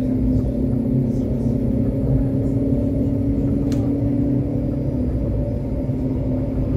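Light-rail tram running, heard from inside the car: a steady low rumble of wheels on the track with a motor hum whose pitch climbs slightly, then drops back about five seconds in. A single sharp click near the middle.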